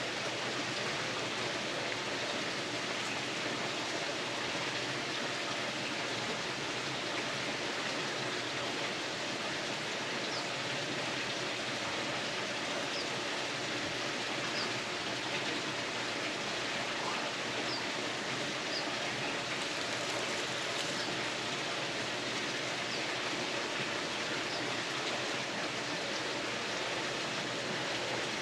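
Tinder fire of punk wood and a pine-needle bird's nest burning with a steady rushing hiss and a few faint crackles, the sign that the spark from an empty Bic lighter's flint wheel has caught.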